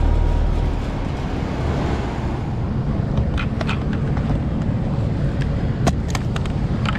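Air-conditioning unit running with a steady low rumble, which eases slightly about a second in. A few light clicks and taps come in the second half.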